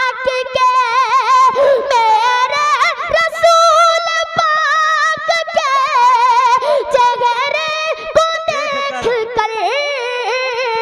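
A young boy singing a naat unaccompanied into a microphone, drawing out long ornamented notes with a heavy vibrato.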